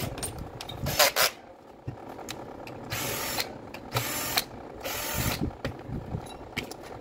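Cordless drill/driver spinning in three short bursts about a second apart, its long bit backing out the screws that hold an orbital sander's sanding pad. A brief louder rush of noise about a second in, with light clicks and handling knocks in between.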